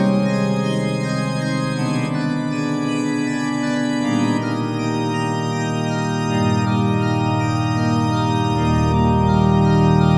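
Background music of held chords with a wavering tone, changing every two seconds or so.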